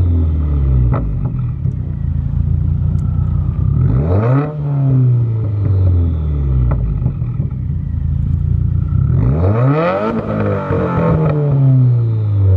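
2015+ Subaru WRX turbocharged flat-four with a Cobb turboback exhaust (downpipe and catback), revved twice from idle: each rev climbs quickly and then falls slowly back to idle, with a few sharp pops from the exhaust.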